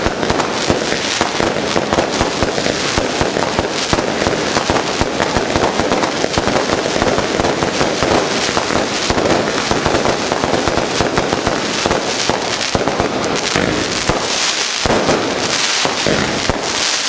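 Fireworks display: a dense, unbroken barrage of bangs and crackling from aerial shells bursting overhead.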